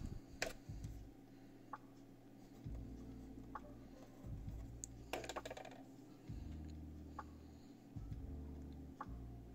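Crochet hook and fingers working cotton yarn in single crochet: a handful of faint, sharp light clicks at irregular intervals, with a quick run of them about five seconds in, over a soft low handling rumble.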